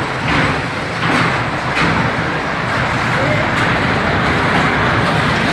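Electric bumper car running across the rink floor: a steady rumble from its motor and wheels, with a few sharp clicks in the first two seconds.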